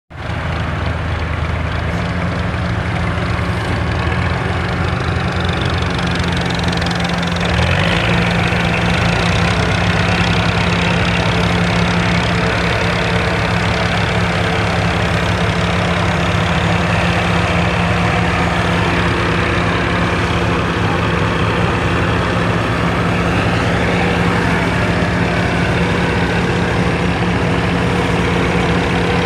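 Heavy diesel engines running steadily under load as a Massey Ferguson tractor tows a combine harvester that is stuck in a wet rice paddy. The engine sound gets louder about seven or eight seconds in, then holds steady.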